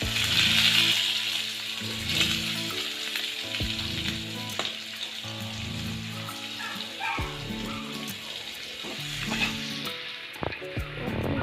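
Parboiled potato slices sizzling as they fry in oil and melting butter in a pan, with scattered clicks of a utensil moving them. The sizzle is loudest in the first couple of seconds.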